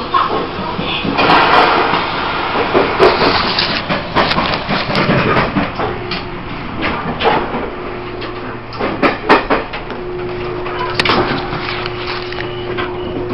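Knocks, bumps and door clatter inside a Taiwan Railways E1000 push-pull train carriage, with a steady hum coming in about halfway through.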